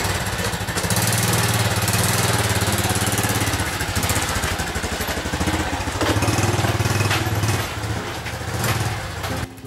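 Small motorbike engine running as the bike pulls away and rides off, swelling about six seconds in, then fading and cutting off just before the end.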